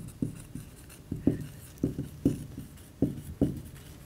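Marker pen writing on a whiteboard: a run of short separate strokes, about two a second, as a line of handwriting is written.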